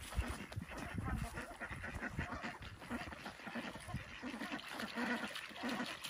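Ducks quacking in short, irregular calls as they paddle away from a child at the pond's edge.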